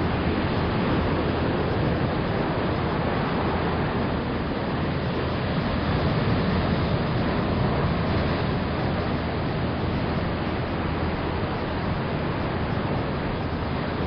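Ocean waves crashing and foaming over rocks along a rocky shore: a continuous wash of surf that swells a little midway and eases slightly near the end.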